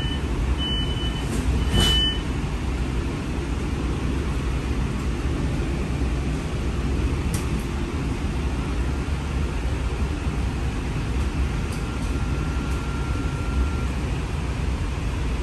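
A streetcar's door-closing warning beeps sound a few times in the first two seconds, then the car pulls away and runs with a steady low rumble heard from inside the cabin. A faint steady tone rises above the rumble for a few seconds in the second half.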